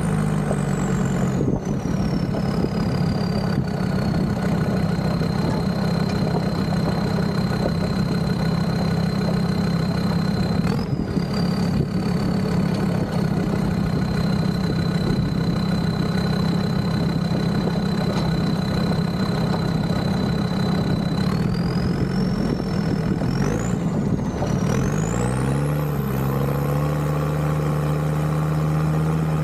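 Land Rover Discovery 2's Td5 five-cylinder turbo-diesel engine running steadily, a low drone with a high whine above it that glides up and down. Near the end the engine note rises as it picks up revs.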